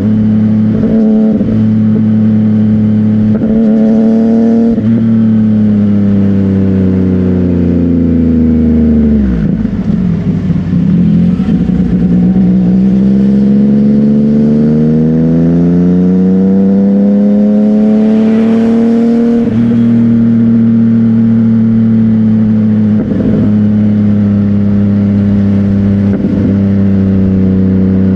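CFMOTO 675NK's inline three-cylinder engine running through a titanium aftermarket exhaust while riding. The engine note holds steady, drops about nine seconds in, then climbs for about ten seconds before falling back, and runs steady again afterwards.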